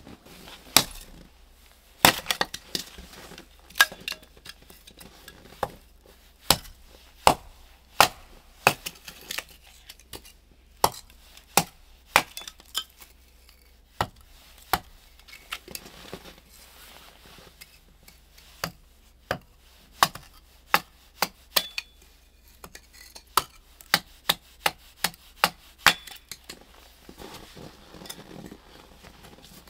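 Hatchet chopping and splitting wood on a stump chopping block: a long series of sharp chops, spaced unevenly and sometimes coming in quick runs of several strokes.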